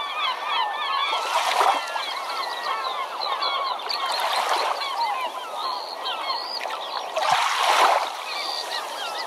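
Many birds calling at once in short, rising and falling cries, over waves washing in three times, about a second and a half, four and a half and seven and a half seconds in.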